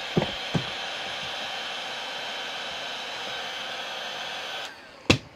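Milwaukee cordless heat gun blowing steadily while heating a battery case's glued seam, with a couple of light knocks in the first half second. It cuts off abruptly near the end, and a sharp knock follows.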